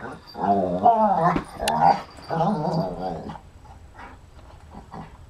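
Dog making three drawn-out, wavering whiny growls while play-fighting with another dog.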